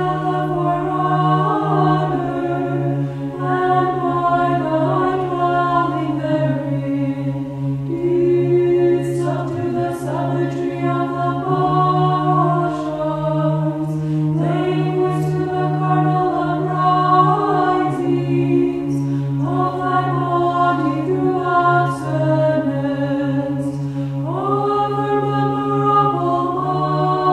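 A cappella choir chanting in phrases several seconds long over a steady, low, held drone note.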